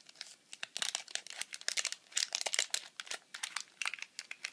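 Clear plastic wrapping around a bar of soap crinkling and crackling in the hands as it is pulled open, in quick irregular crackles that are busiest about a second to three seconds in.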